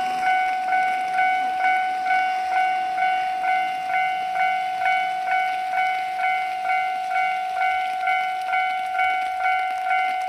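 Japanese railway level crossing's warning alarm ringing, a steady bell-like 'kan-kan' struck evenly a little more than twice a second.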